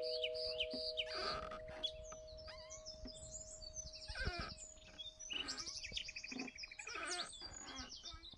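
Several songbirds chirping and trilling in an ambient nature soundscape. Two steady ringing tones carry on under them: the lower one stops about three seconds in, and the higher one near the end.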